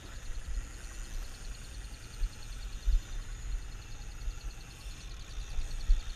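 Ambient noise aboard a fishing boat at sea: low, uneven rumble of wind buffeting the microphone, with several stronger bumps, over a faint steady high hum.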